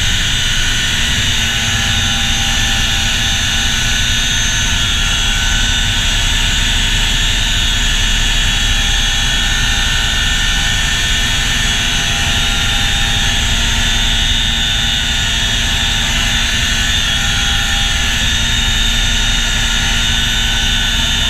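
CH-47 Chinook tandem-rotor helicopter, with its twin turbine engines and rotors running steadily in flight: a constant high turbine whine over a dense low drone.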